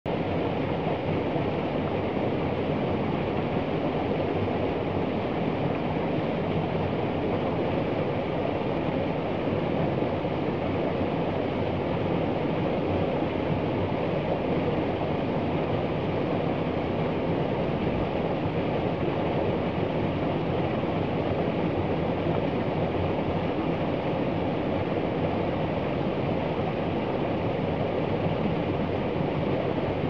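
Small stream cascade rushing steadily over rocks, an unbroken even roar of water.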